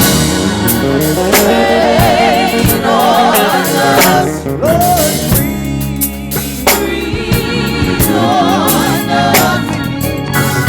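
Live gospel praise band: a singer's voice with vibrato and melodic runs over a drum kit and held keyboard chords.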